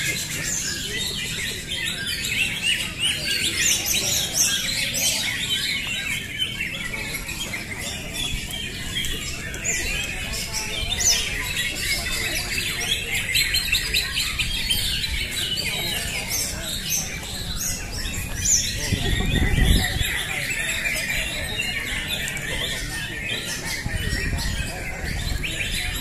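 Many caged greater green leafbirds singing together in competition: a dense, continuous chorus of overlapping high chirps and song. A brief low rumble comes about three quarters of the way through.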